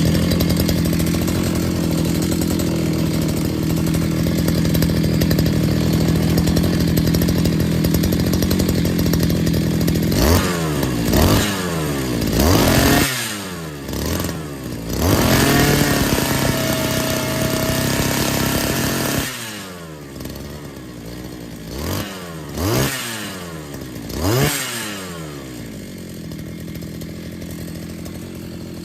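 Kisan Kraft KKBC 555 two-stroke brush cutter engine running with its silencer freshly cleared of a mud blockage. It idles steadily, is revved up and down about ten seconds in and held at high speed for a few seconds, drops back, then is blipped three times before settling at idle.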